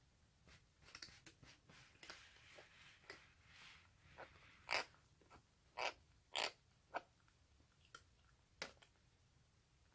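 Baby cheese-tabby kitten eating greedily: faint, irregular chewing clicks and wet smacks, with a few louder smacks in the middle.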